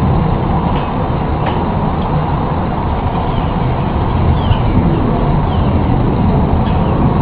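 A loud, steady low rumbling roar with nothing visible making it, of the kind presented as a mysterious sound from the sky, with a few faint bird chirps over it.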